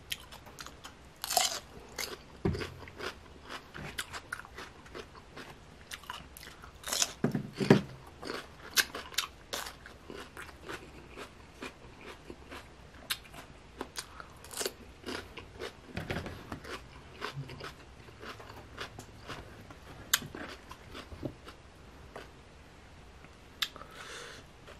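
Close-miked biting and chewing of crisp cucumber, a rapid run of sharp wet crunches, loudest in clusters about a second in and about seven to eight seconds in. The cucumbers are super crunchy.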